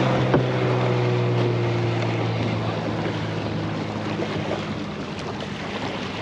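A motorboat engine running at a steady pitch and slowly fading, over wind noise on the microphone, with one sharp click about half a second in.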